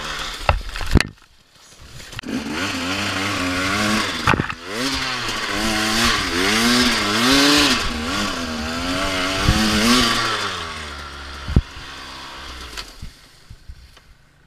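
2014 KTM XC-W 250 two-stroke dirt bike engine revving up and down with the throttle. It drops almost to nothing just after a second in, then comes back and dies away near the end, with a few sharp knocks along the way.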